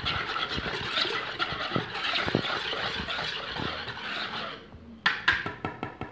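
Wire whisk beating a wet batter of oil, milk and ricotta in a plastic bowl: a steady swishing. About four and a half seconds in the whisking stops, and the whisk then gives a few sharp, ringing metallic clinks against the bowl.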